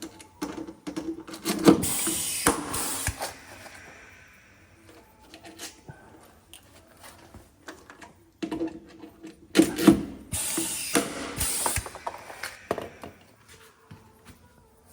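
Shop work noise in two bouts: metal clattering and tool handling, each bout with a few short hissing bursts.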